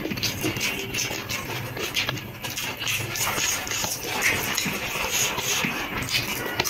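Background music with close eating sounds mixed in: short clicks and rustles of rice and curry being eaten.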